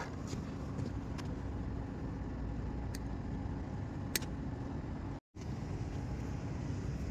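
Steady low machinery hum with a few faint clicks, cutting out for a split second about five seconds in.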